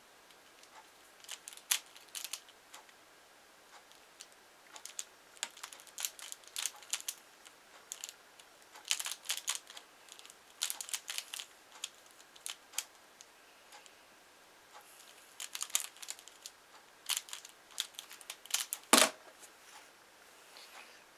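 Plastic clicking of a pyraminx puzzle being turned in quick bursts with short pauses. About 19 seconds in, one louder thump as the hands come down on the Speed Stacks timer pads to stop it, followed by a few light laptop-key taps.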